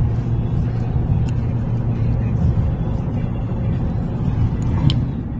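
Road noise inside a moving Honda car: a steady low rumble of tyres and engine at driving speed, with a couple of faint ticks, one about a second in and one near the end.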